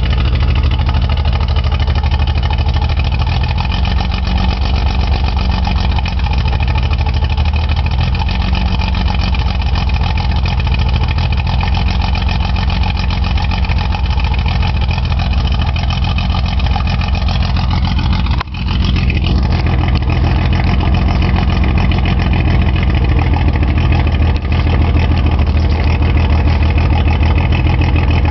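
Datsun 280Z's straight-six engine idling roughly, with one fuel injector stuck open. The sound drops out briefly about two-thirds of the way through.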